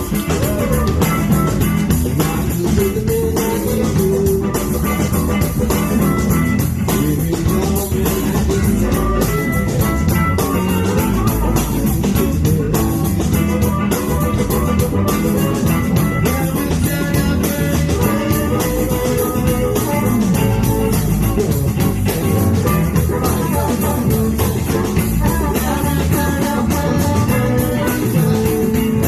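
Blues band playing live: electric guitars, bass guitar and drum kit keep a steady groove under a sustained melodic lead line.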